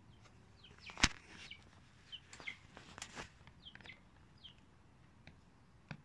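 Chick peeping faintly: short, falling peeps several times over, with a few sharp clicks, the loudest about a second in.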